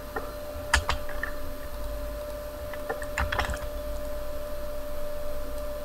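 A few computer keyboard and mouse clicks: a couple about a second in and a quick cluster about three seconds in, over a steady background hum.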